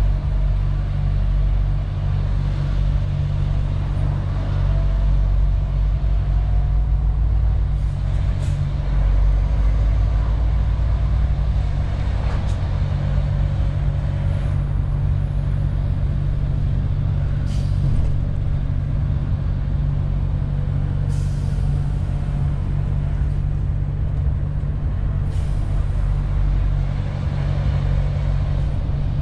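Cab interior of a MAN TGX 18.470 truck driving slowly, its 12.4-litre straight-six diesel running with a steady low drone, with a few brief hisses along the way.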